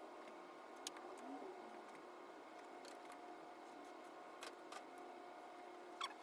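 Near silence: faint steady room hum with a few scattered soft clicks.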